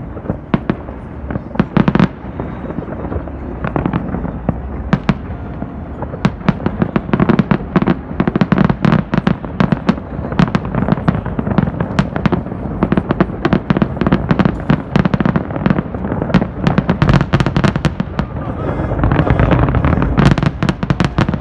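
Aerial fireworks going off in rapid, dense succession, a steady run of bangs and crackles over a low rumble, growing louder and denser near the end.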